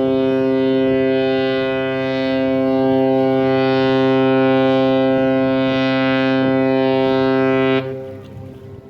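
Horn of the general cargo ship Siskin Arrow sounding one long, steady blast on a single low pitch, cutting off about eight seconds in with a short fading echo. It is a warning signal to a sailboat moving slowly across the ship's path in the channel.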